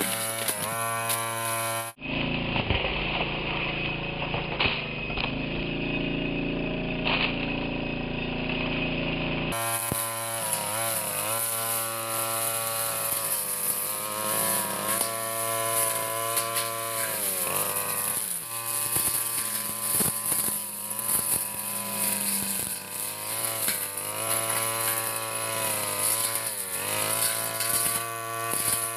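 Petrol brush cutter engine running at high revs while cutting grass, its pitch dipping briefly several times as the blade bites into the grass and the soil, then picking back up. For a stretch near the start the sound turns duller and lower.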